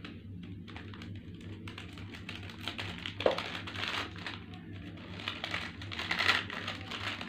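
Plastic snack packet crinkling and crackling as it is torn open and handled. There is a sharp click about three seconds in, and a denser crackle near the end.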